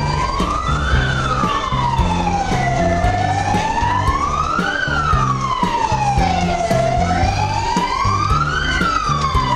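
A wailing siren, its tone slowly rising and falling, one full sweep about every four seconds, over a low pulsing rumble.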